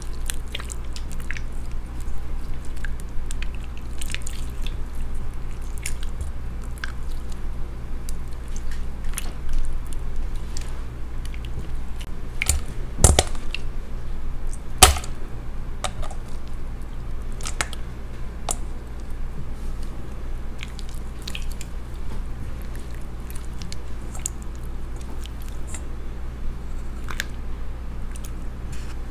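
Clear orange slime being squeezed and kneaded in the hands, giving a steady stream of wet, sticky clicks and pops, with two louder pops about halfway through. A low steady hum sits underneath.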